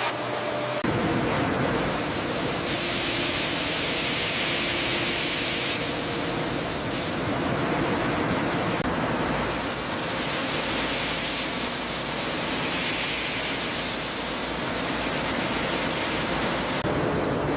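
Sawmill machinery running: a steady rushing noise with a faint low hum, changing abruptly about a second in and again near the end.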